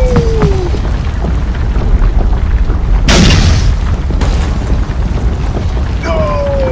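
Edited sound effects over a steady low rumble: a falling cartoon tone near the start, a loud boom about three seconds in as the miniature concrete bridge cracks, and the same falling tone again near the end.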